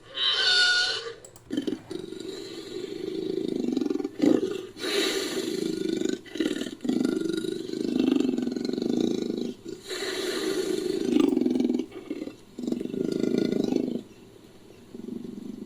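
Invented creature sound effects made from big-cat recordings, leopard among them: a short wavering high-pitched call, then a run of long roars and growls with brief breaks between them, dying away near the end.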